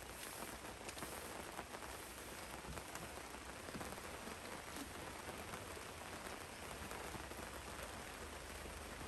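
Steady rain falling, with many small drop hits ticking through it.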